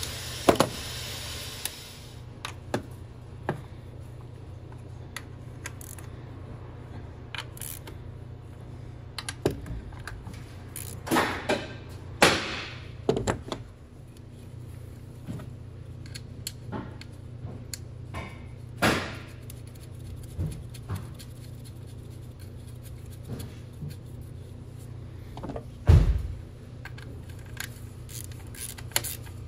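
Scattered metallic clicks, clunks and knocks of hand tools and parts being handled while reassembling the top of a four-cylinder engine, over a steady low hum. The loudest knock comes near the end.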